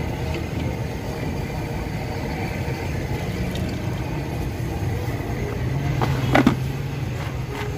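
Water splashing and dripping as handfuls of cut raw potato fries are lifted out of a tub of soaking water into a plastic colander, over a steady low street-traffic rumble. A short sharp sound stands out about six and a half seconds in.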